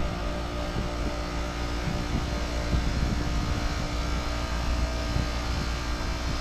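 2018 Aire-Flo 4HP15 heat pump outdoor unit running steadily through a defrost cycle: a constant mechanical hum and rush with a few steady tones.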